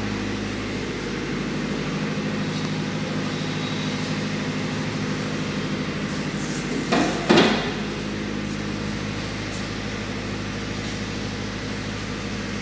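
Steady mechanical hum made of several even tones, with one short knock about seven seconds in.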